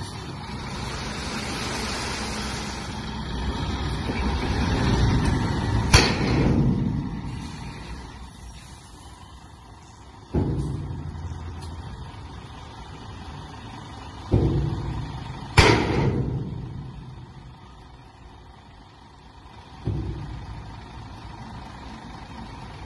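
Diesel engine of an eight-wheel tipper truck running while its raised body tips out a load of sand and is then lowered. A rushing hiss builds over the first few seconds, two loud sharp clanks come about six seconds in and again about fifteen seconds in, and the engine rumble picks up suddenly several times.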